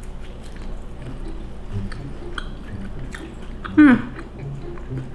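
Close-up chewing of a gooey brown-sugar hotteok pancake with almonds: soft, wet mouth sounds and small clicks. About four seconds in there is a brief, loud vocal "mm" that falls in pitch.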